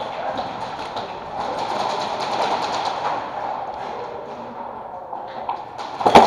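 Steady rustling noise of movement and gear, then two loud sharp shots close together near the end, from airsoft guns.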